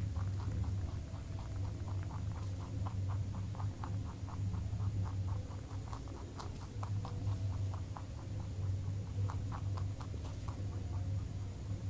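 Rabbit chewing raw carrot close to the microphone: quick crunchy bites, about four or five a second, thinning out near the end, over a steady low hum.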